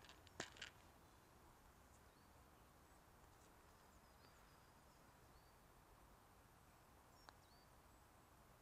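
Near silence: faint outdoor stillness with a few soft clicks in the first second and another single click near the end, and a few faint, high bird chirps in between.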